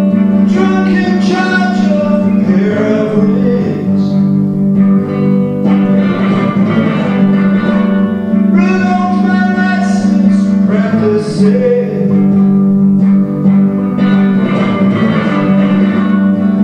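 Electric guitar played live, chords ringing over a steady sustained low note, with a man singing in phrases over it.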